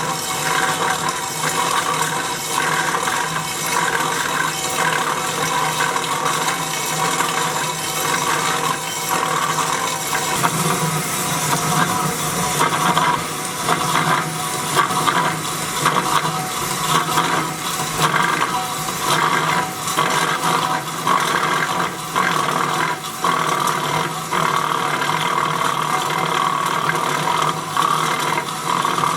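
Power metal-cutting saw cutting through steel, running steadily with a continuous grinding hiss and small dips in level throughout.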